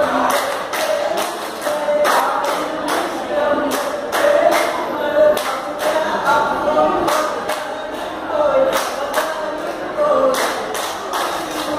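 Vattappattu performance: a group of male voices singing in unison with a lead voice, accompanied by the seated performers' rhythmic hand-clapping in time with the song.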